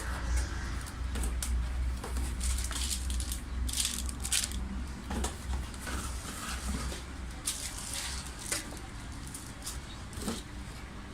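Packaging of a DVR being handled during unboxing: scattered rustles, crinkles and light knocks over a steady low hum.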